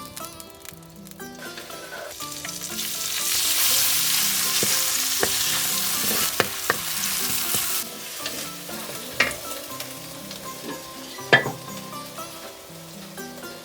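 Food frying in hot oil in a pan. The sizzle swells loud a couple of seconds in and drops back near the eighth second. A few sharp clicks of a utensil strike the pan.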